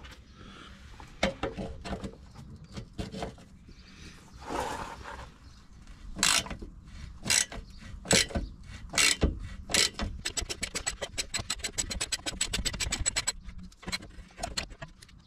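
Hand socket ratchet working a seized exhaust bolt: clicks and about five separate strokes a second or so apart, then a fast even run of ratchet clicks for about three seconds as the ratchet is spun.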